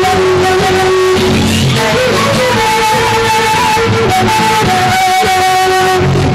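Andean folk band playing: a violin carries the melody in long held notes over strummed plucked strings.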